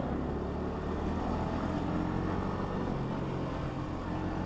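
Yamaha XSR155's single-cylinder engine running steadily under way, with road noise.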